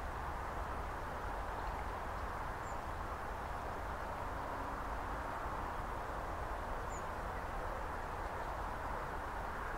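Steady outdoor background noise at a country railway station with no train in sight, with two faint, high bird chirps about three and seven seconds in.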